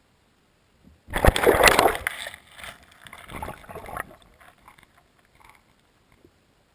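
Knocking and scraping against an underwater camera's housing. It starts suddenly about a second in, is loudest for about a second, then turns to rustling and a few scattered clicks that fade out.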